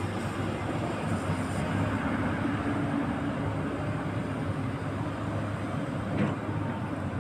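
Excavator's diesel engine running steadily as the machine manoeuvres, with one brief knock about six seconds in.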